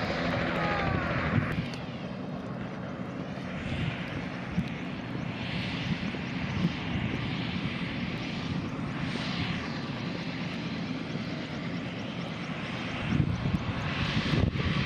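Helicopter engine and rotor noise, a steady mechanical roar with a low hum, louder for the first second and a half and again near the end, swelling and fading in between.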